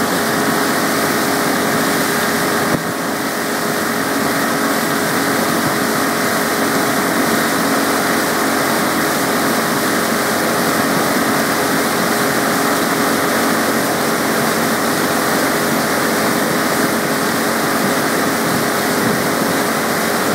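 Centurion Falcon Barefoot ski boat's engine running steadily at towing speed, under the rush of the churning wake and wind on the microphone.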